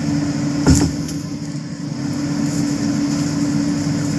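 Interior noise of a New York City subway car: a steady hum over low rumble, with a sharp clunk about a second in and another near the end.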